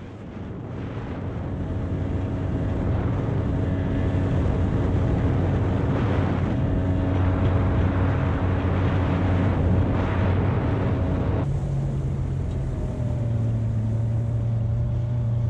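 Small open boat's motor running steadily under way, with water rushing along the hull and wind on the microphone. About two-thirds of the way through, the engine note changes abruptly.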